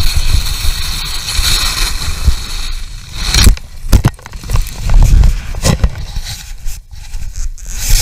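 Wind rushing over an action camera's microphone as a skier speeds down a snow slope, with skis scraping the snow. From about three and a half seconds in come several heavy thumps as the skier crashes and tumbles.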